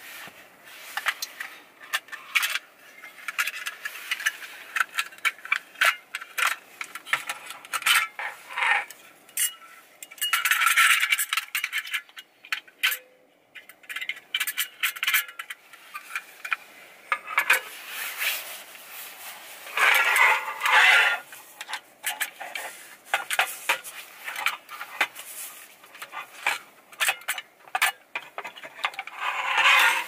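Metal handling of a folding stainless-steel camping gas stove: repeated clicks, rattles and scrapes as its legs and panels are unfolded and set on a wooden tabletop.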